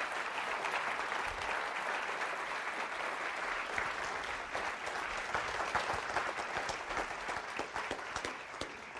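Audience applauding: a dense, steady patter of many hands clapping that begins to thin out near the end.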